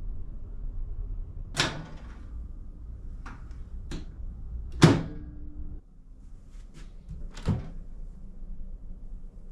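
A series of clicks and clunks from a small Haier microwave's door being opened and shut, the loudest a latch clunk about five seconds in, then the click of the mini fridge's freezer door opening.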